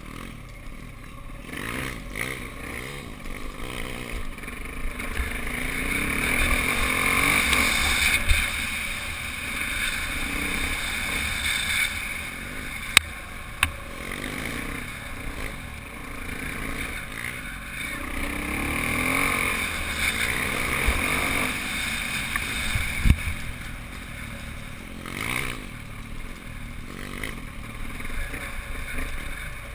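Off-road motorbike engine running at trail speed, swelling twice as the throttle opens and then easing off, with wind rushing over the microphone. A few sharp knocks come in the middle.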